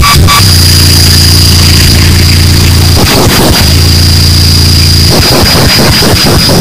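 Harsh noise music: a loud, distorted wall of noise over a steady low drone and a thin high whine. It breaks into rapid stuttering chops about three seconds in, and again from about five seconds on.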